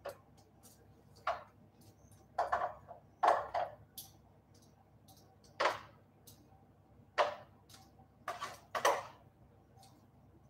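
Metal kitchen tongs clacking and scraping against a roasting tray and salad bowl as roast vegetables are picked up and placed. About nine short, sharp clacks at irregular intervals, with small ticks between them.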